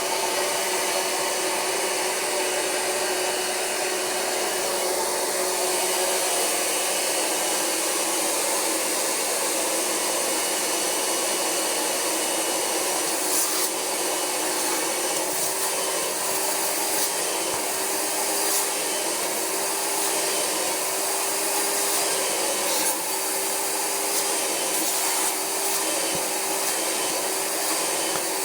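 Rug Doctor Mighty Pro carpet cleaner's vacuum motor running steadily while its upholstery hand tool is worked over couch fabric, extracting the cleaning solution, with a faint steady hum and a few light clicks.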